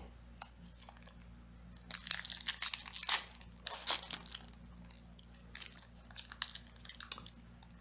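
Foil Pokémon card booster pack wrapper being torn open and crinkled by hand, in irregular bursts of crackling that are loudest from about two to four seconds in.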